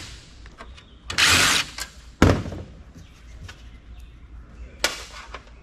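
Sheet-metal side panel of a PC tower case being worked loose and slid off: a scraping slide about a second in, a sharp metal clank just after two seconds, and a shorter scrape near the end.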